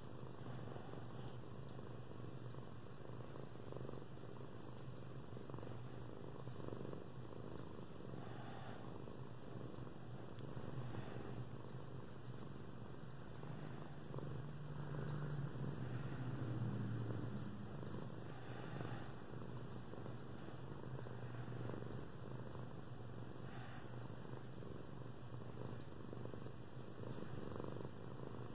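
Domestic cat purring continuously while being stroked on the head, a low steady rumble that grows a little louder for a few seconds about halfway through.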